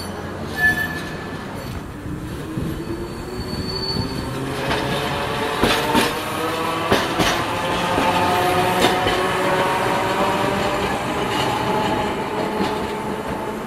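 Hiroshima Electric Railway 700-series streetcar no. 703 pulling away, its motor whine rising in pitch as it gathers speed and then holding steady. Wheels clack over rail joints and points several times, with a brief high wheel squeal on the curve in the first few seconds.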